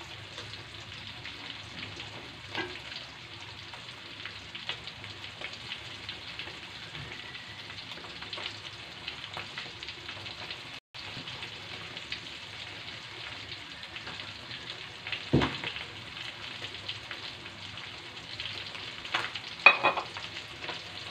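Flour-coated chicken pieces deep-frying in oil in a stainless steel wok: a steady sizzle full of fine crackles, with a few sharper pops, as the coating is left to fry until crisp.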